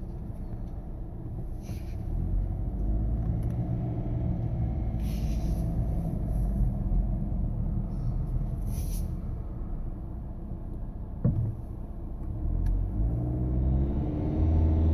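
2016 Nissan Rogue SL engine running with a low grinding rumble, its pitch rising twice as the revs climb and loudest near the end. The grind comes from a defective engine that the dealer later replaced.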